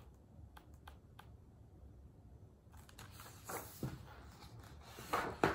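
Pages of a large hardcover picture book being handled and turned: faint paper rustling with a few light clicks, a little louder near the end.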